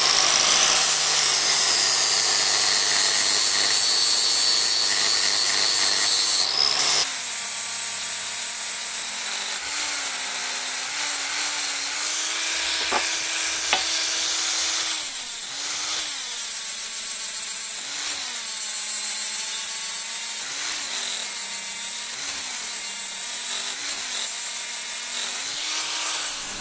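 Angle grinder grinding down a hardfacing weld on a steel power hammer die: a steady high whine whose pitch sags each time the disc is pressed into the steel and recovers as it eases off, about every second or two. The sound changes abruptly about seven seconds in.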